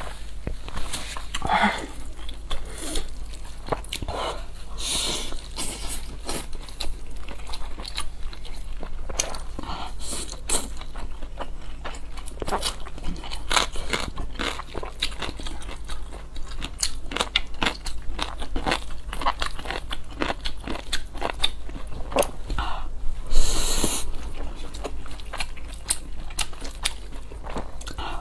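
Close-up eating sounds: biting into and chewing pan-fried dumplings and spicy noodles, with a steady run of wet mouth clicks and smacks. One louder burst of noise stands out near the end.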